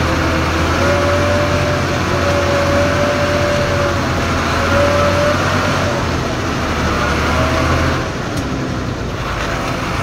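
Bus engine running, heard from inside the cabin as a steady low drone; the drone drops in level about eight seconds in, as the engine eases off. A thin higher whine comes and goes over the first half.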